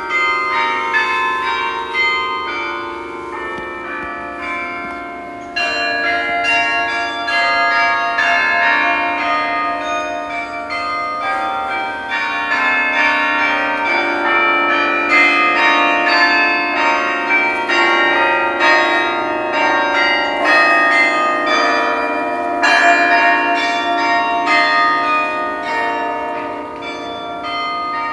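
The Bok Tower carillon, a 60-bell instrument, playing a melody. Many tuned bells are struck in quick succession and ring on, overlapping, with some notes repeated rapidly.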